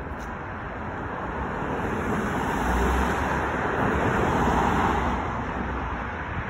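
A car driving past on the street: its road and tyre noise swells over the first few seconds and eases near the end.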